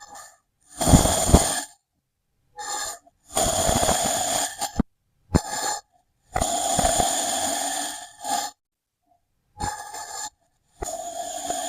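Kinetic sand being cut and crumbled, a grainy, crackly crunching in about eight short bursts separated by abrupt silent cuts.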